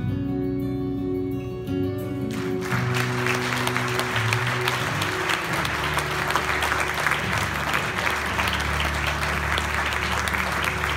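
Instrumental music, with an audience breaking into applause about two and a half seconds in; the clapping carries on over the music.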